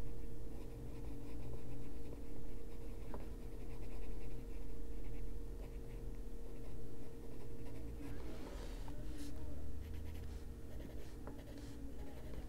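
Black Polychromos coloured pencil rubbing on paper in repeated shading strokes, rising and falling every second or two, over a faint steady hum.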